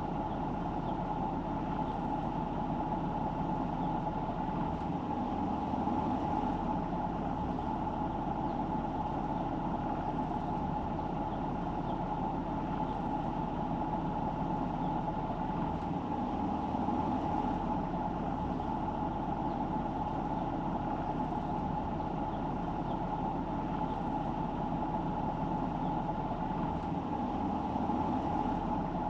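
Car driving: steady engine and road noise with no sharp changes.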